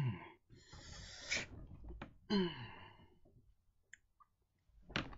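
A man's wordless vocal sounds close to the microphone: a short falling "ahh", a long breathy exhale like a sigh, then another short falling vocal sound about two seconds in. A few small clicks follow and a sharp knock comes near the end.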